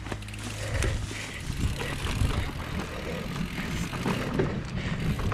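Mountain bike riding down a dirt forest trail: tyres rolling over earth and fallen leaves, with the bike rattling irregularly over bumps.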